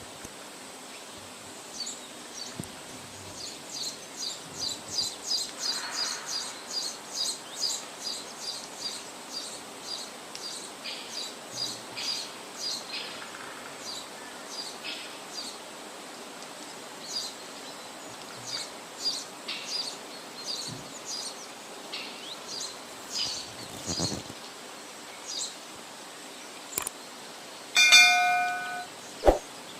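Birds chirping: rapid, repeated short high chirps, several a second, over a faint steady hum. Near the end comes a short ringing, chime-like tone.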